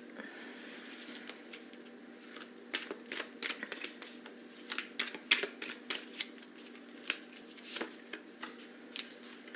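Tarot cards being handled and shuffled: a run of light, irregular card clicks and flicks, over a faint steady hum.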